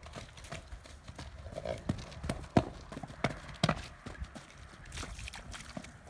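A cob horse's hooves knocking on hard ground, an irregular run of hoof strikes with two louder knocks around the middle.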